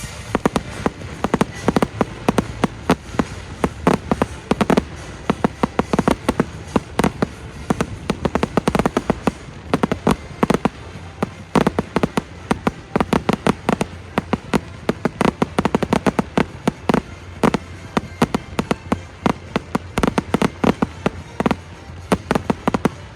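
Fireworks going off in a dense, rapid string of sharp bangs and crackles, several a second, with no pause.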